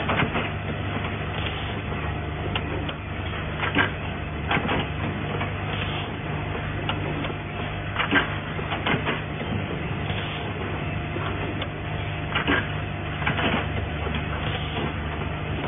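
Automatic cable tie tying machine at work on motor lead wires: a steady mechanical hum with sharp clacks every one to four seconds.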